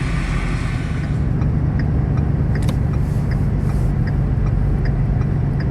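A vehicle engine running steadily while driving on the road: a constant low hum over road rumble.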